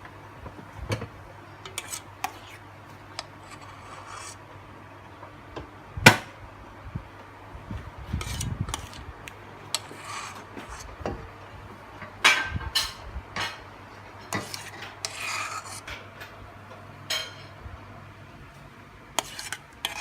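A spoon stirring and scraping through a thick fish and curry-paste mixture in a stainless steel pot, with irregular scrapes and clinks against the metal and one sharp knock about six seconds in.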